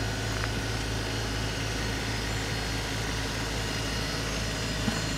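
LS MT125 sub-compact tractor's diesel engine running steadily while its front loader works dirt, with a single short knock near the end.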